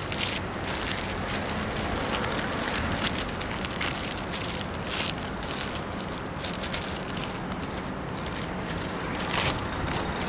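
Steady rushing hiss with irregular crackles, typical of wind buffeting the camera microphone, over a low background of street traffic.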